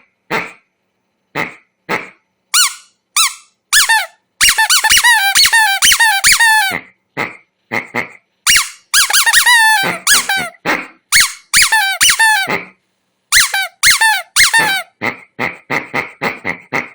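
Squeaky rubber dog-toy ball squeezed over and over: short squeaks, some single and some in quick runs of several a second, many dipping in pitch as they end.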